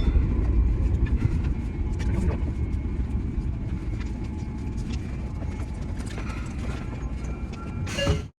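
Sotetsu 8000 series electric train running, heard from the cab: a dense low rumble full of rattling clicks that slowly quietens, then cuts off abruptly near the end.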